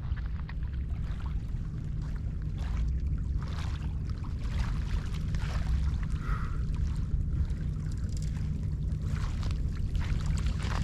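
Low, steady wind rumble on the microphone, with small sloshes and splashes of water.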